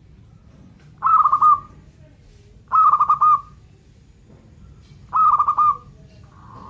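Zebra dove cooing: three short, rolling coo phrases about two seconds apart, each a quick run of pulsed notes, then a softer, drawn-out coo starting near the end.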